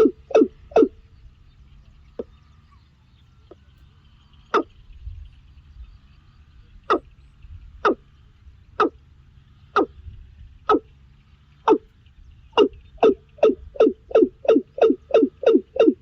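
A bird calling a short, repeated note: a quick run at the start, then single calls about a second apart, speeding up again into a fast run of about three calls a second near the end.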